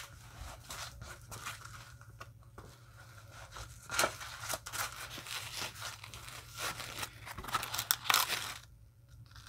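Hard plastic blister packaging of a padlock crackling and crinkling as it is handled, with irregular clicks and scrapes; the sharpest cracks come about four seconds in and again near eight seconds.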